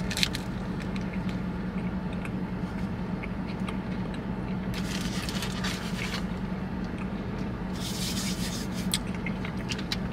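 Close-up eating sounds: chewing a bite of a chicken sandwich and handling its paper wrapper, with two louder stretches of noise about five and eight seconds in. A steady low hum runs underneath.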